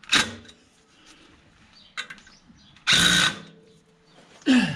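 Cordless impact driver running in short bursts, the longest about half a second, about three seconds in. It is winding the clutch pressure plate bolts down gradually onto the flywheel.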